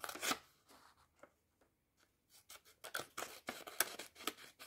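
Small scissors of a Rocktol SK02 multitool cutting a sheet of paper: a rustle of the sheet first, then from about halfway a quick run of snips, about four or five a second.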